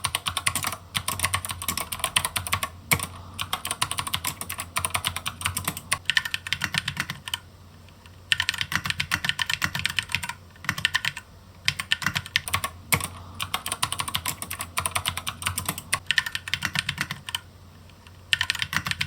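Fast typing on a mechanical keyboard with clicky MX-type switches: runs of rapid keystroke clicks and clacks broken by a few short pauses.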